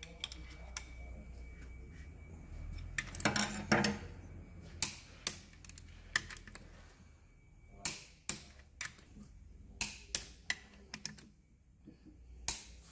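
Ratchet and torque wrench working the connecting-rod cap nuts of a Nissan RB25/30 engine: scattered sharp clicks and metal clinks, with a quick cluster about three to four seconds in.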